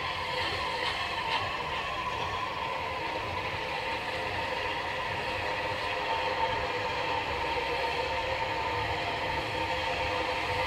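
Unrebuilt Bulleid West Country class Pacific steam locomotive 34092 City of Wells working a train slowly toward the listener: a steady running sound with a few held tones, growing slightly louder near the end.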